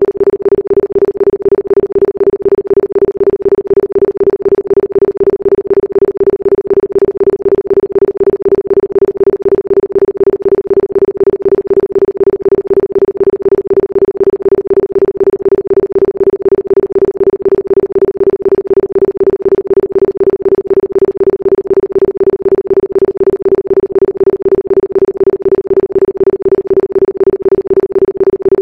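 Isochronic tone for brainwave entrainment: a single steady electronic tone at a mid pitch, pulsing on and off at a fast, even rate, several times a second, without a break.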